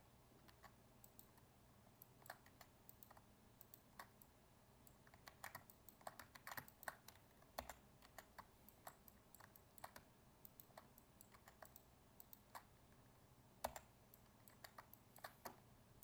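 Faint, irregular clicking of computer keyboard keys and a mouse, a few clicks a second at the busiest, with a steady low hum beneath.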